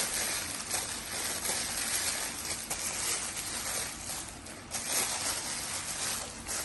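Thin white packing wrap crinkling and rustling steadily as it is handled and folded by hand, with many small crackles.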